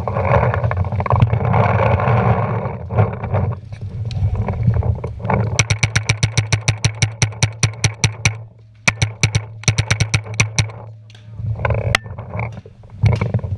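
Paintball marker firing two rapid strings of shots, about seven sharp pops a second, the first starting about halfway through and a second, shorter string following a moment later, with a few single shots near the end. A rush of rustling noise fills the first few seconds.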